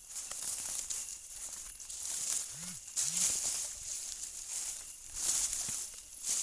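Rustling of watermelon vines and leaves as watermelons are searched for and picked by hand, in uneven surges of hiss. Two short low sounds come close together a little before the midpoint.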